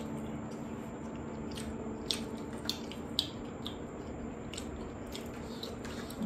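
Eating sounds from a meal of mutton curry with pulao: soft squishes of food being chewed and handled, with several small sharp clicks between about two and six seconds in.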